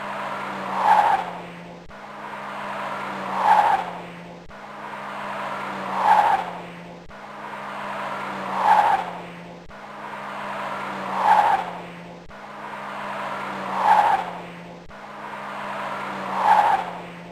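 Car driving on a flat tyre: a scrubbing, squealing tyre noise that swells and fades seven times, about once every two and a half seconds, over a steady low engine hum.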